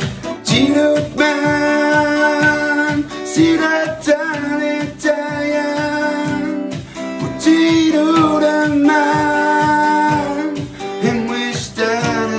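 A man singing a slow song in Innu, accompanying himself on a strummed acoustic guitar with a steady rhythm of about two strokes a second.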